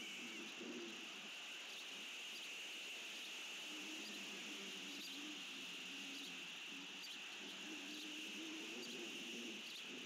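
Faint outdoor ambience: a steady high-pitched drone, with low, broken cooing calls that come and go, strongest in the second half.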